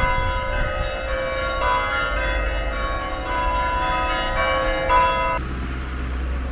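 Church bells ringing, several bells sounding overlapping notes that carry on for about five seconds and then stop.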